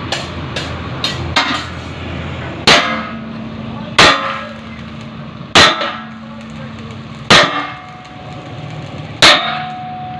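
Hammer striking metal: five heavy blows about every one and a half to two seconds, each leaving a brief metallic ring, after a few lighter taps in the first second and a half.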